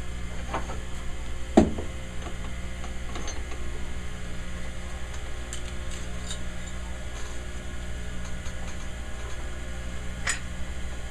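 Light metal clicks and knocks from the edges of a skate runner being checked for squareness, one sharper knock about one and a half seconds in, over a steady low machine hum.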